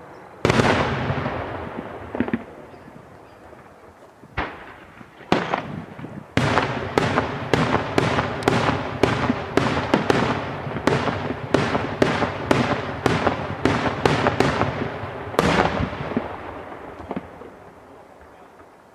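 Daytime aerial fireworks shells bursting as loud bangs, each trailing off in a long rolling echo. One big bang about half a second in, a few scattered ones, then a rapid volley of about two bangs a second for some eight seconds, closing with one more big bang that fades slowly away.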